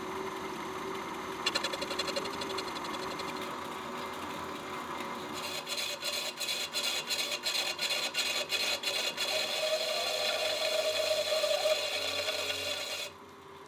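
Metal lathe running while a turning tool faces a spinning 3D-printed plastic part, with a regular ticking through the middle of the cut. The sound drops away suddenly shortly before the end.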